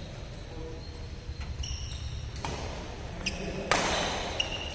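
Badminton rackets striking the shuttlecock: two sharp smacks about a second apart in the second half, the later one louder, echoing in a large hall. Between the hits come short, high-pitched squeaks of court shoes on the floor.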